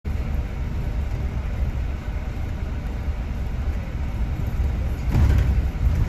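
Steady low rumble of a moving double-decker bus, its engine and road noise heard from inside the upper deck, with a brief louder rush about five seconds in.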